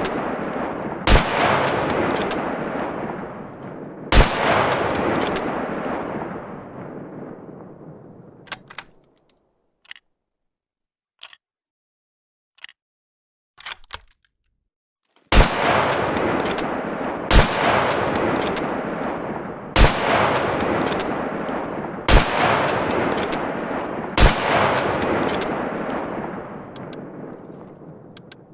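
M1891 Mosin-Nagant bolt-action rifle (7.62×54mmR) firing seven single shots, each a sharp crack followed by a long rolling echo. Two shots come about three seconds apart, then a pause filled with a few faint clicks, then five shots about two seconds apart.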